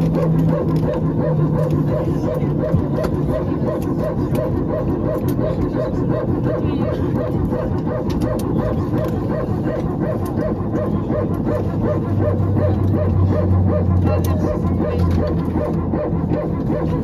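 Airbus A320 hydraulic power transfer unit (PTU) running in a long spell, heard from the cabin: its typical 'barking dog' sound as a rapid, evenly spaced string of bark-like pulses over a low hum. The PTU runs when the green and yellow hydraulic systems differ in pressure, one driving the other.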